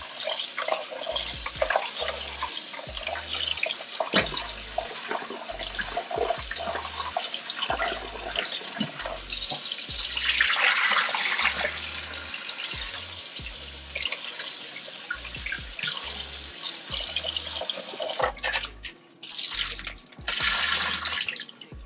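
Kitchen faucet running into a bowl of raw shrimp in a stainless steel sink, water splashing and sloshing as the shrimp are rinsed by hand and the bowl is tipped to drain. A louder rush of water comes about ten seconds in.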